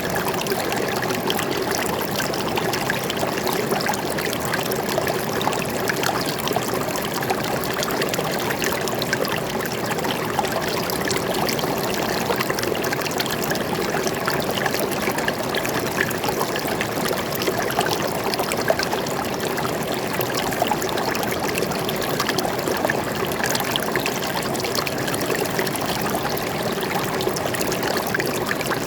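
Water flowing and trickling steadily over rocks in a forest stream, a continuous splashing babble with no breaks.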